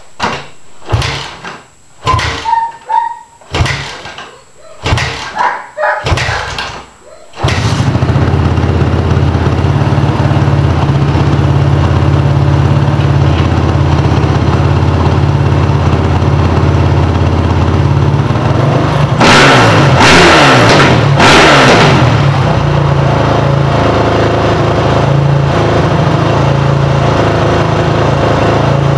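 Honda CRF450's single-cylinder four-stroke engine being kick-started: about five kicks a little over a second apart, then it catches about seven seconds in and settles into a steady idle. About two-thirds of the way through, three short blips of the throttle rev it up and let it fall back. The carburetor has just been rejetted.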